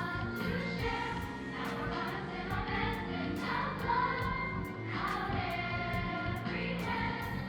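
Music with a choir singing held notes over a light, steady ticking beat.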